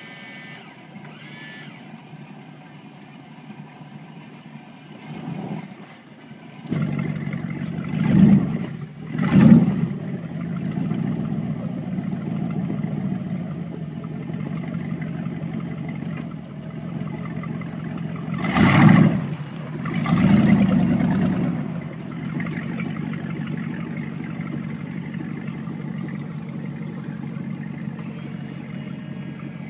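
Baja H2X speedboat's engine starting about six seconds in, then blipped in revs twice in quick succession, twice more about ten seconds later, before settling to a steady idle.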